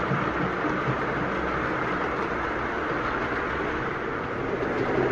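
OO gauge model train running on the layout track: a steady running noise of its wheels rolling over the rails.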